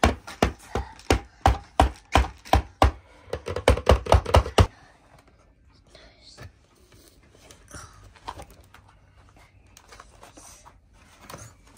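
A quick run of sharp knocks, about three a second, that speeds up and then stops a little under five seconds in. After that, quieter snipping and crinkling as small scissors cut the tape on a toy's cardboard box with its plastic window.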